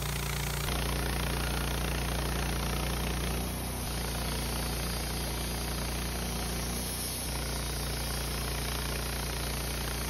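Wood-Mizer LT15 portable bandsaw mill running steadily under load, its engine humming and the band blade cutting through a squared log.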